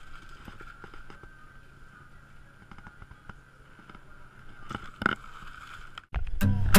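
Shop room tone with a steady thin whine and low hum, light handling clicks, and a plastic rustle about five seconds in as a bag of ice and a box are picked up off the counter. Near the end it cuts suddenly to music with plucked guitar and bass.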